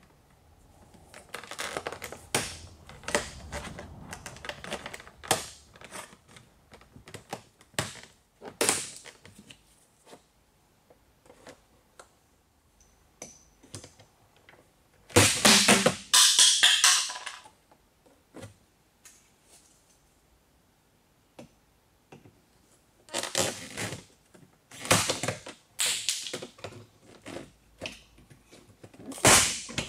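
Plastic door trim and door-panel clips of a Peugeot 607 front door being pried off and unclipped: a run of clicks, snaps and scrapes, with louder clusters about halfway through and again near the end.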